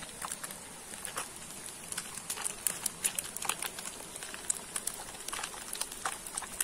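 Lambari fish deep-frying hard in hot oil in a pan over a wood fire: a steady sizzle with frequent sharp crackles and pops.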